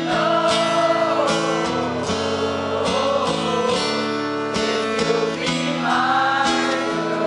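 Live band music: a man singing over a strummed acoustic guitar and a sustained band accompaniment.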